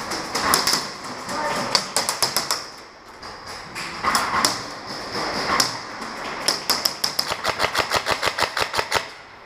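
Airsoft electric rifles firing in full-auto bursts: several short strings of rapid clicking shots, then a longer burst of about ten shots a second in the last few seconds.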